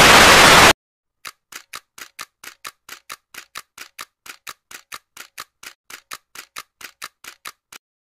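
Loud TV static hiss that cuts off suddenly under a second in. After a short silence comes a steady run of sharp ticks, about four a second, which stops shortly before the end.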